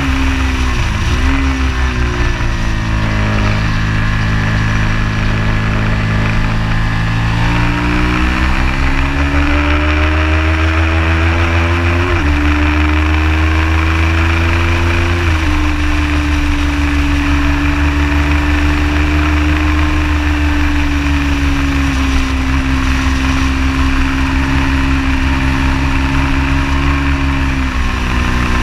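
Ducati Hypermotard 821 SP's L-twin engine on a Termignoni full race exhaust, pulling hard on track. Its pitch dips about a second in, climbs through the gears with shifts around the middle, then holds a steady high note through most of the second half before dropping near the end.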